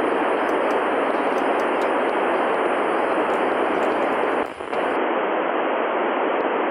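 FM receiver static from an Icom transceiver tuned to the TEVEL-5 amateur satellite downlink near 436.4 MHz: a steady, loud hiss with the squelch open and no station heard yet. The hiss dips briefly about four and a half seconds in.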